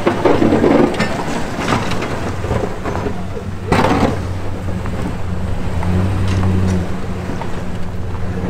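Pickup plow truck's engine running as the truck moves through snow: a steady low hum that grows louder in the second half, with a short rushing burst of noise about four seconds in.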